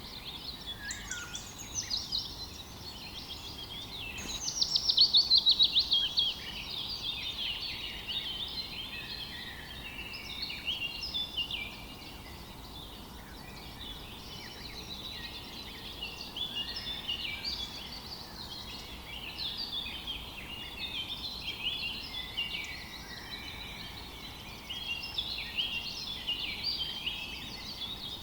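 Several songbirds chirping and singing at once, overlapping short calls throughout, with one loud trill of fast repeated, falling notes about four to six seconds in.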